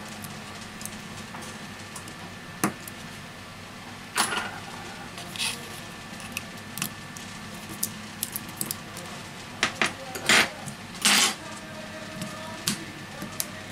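Small clicks, taps and scrapes of tweezers and fingertips handling a Xiaomi Redmi Note 5A's metal mid-frame, flex cables and battery, with a few longer scraping rubs past the middle. A faint steady hum runs underneath.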